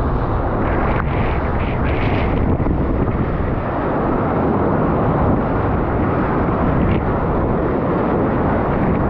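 Strong wind buffeting the microphone of a kitesurfer's wearable camera: a loud, steady rumbling noise. Water rushes and splashes under the board through the whitewater, most noticeably between about one and two and a half seconds in.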